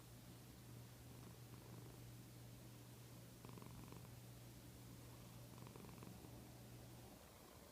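Faint, low, steady snoring rumble of a sleeper, with two short breathier patches in the middle, stopping near the end.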